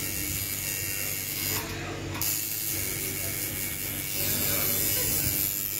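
Coil tattoo machine buzzing steadily as the needle works ink into the skin of a forearm.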